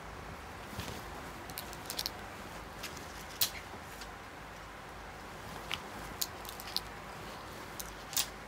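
Clothes on hangers being handled: a dozen or so light, sharp clicks and small rustles as hangers knock together and garments are lifted and swapped, over a steady low room hum.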